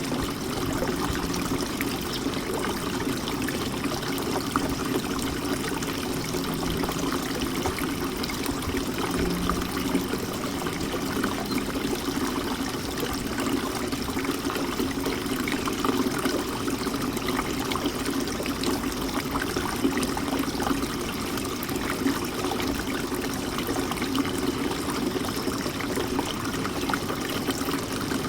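Water from a birdbath fountain trickling and splashing steadily.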